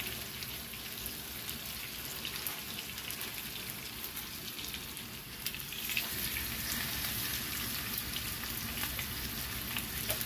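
Herb-crusted bone-in New York strip steaks sizzling in hot oil in a frying pan, a steady hiss with fine crackles. The sizzle grows louder about six seconds in as another steak is laid into the pan.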